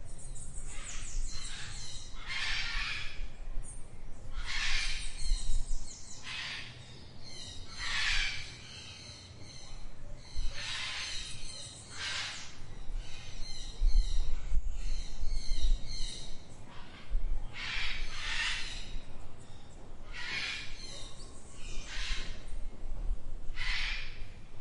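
Birds calling over and over in a garden, short harsh calls about every one to two seconds, over a steady low background rumble.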